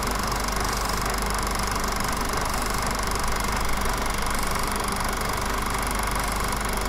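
Steady engine and road noise inside the cabin of a moving car.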